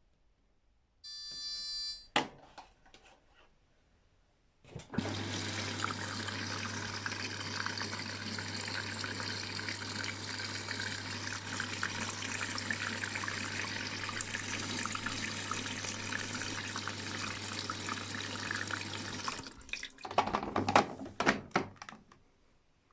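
Whirlpool FSCR90425 front-loading washing machine filling: a short electronic beep and a click, then water rushing in through the detergent drawer with a steady hum from the inlet valve for about fourteen seconds. The fill stops, followed by a few seconds of uneven splashing.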